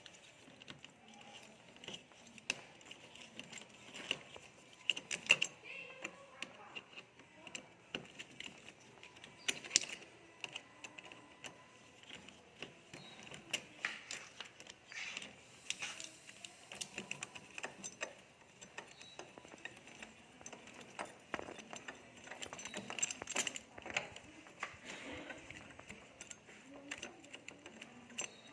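Irregular clicks, clinks and light knocks of hand tools and small metal hardware being handled during door repair work, with a few sharper knocks scattered through.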